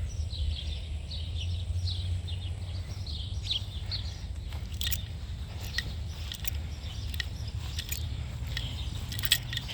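Small birds chirping in quick short notes, thickest in the first few seconds, over a steady low rumble, with scattered sharp ticks toward the end.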